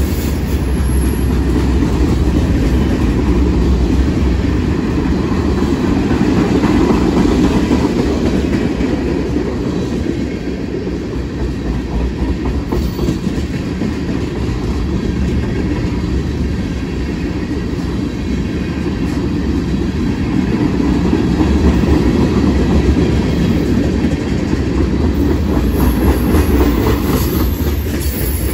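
Freight train cars rolling past close by, mostly tank cars: a steady rumble of steel wheels on the rails, a little quieter in the middle.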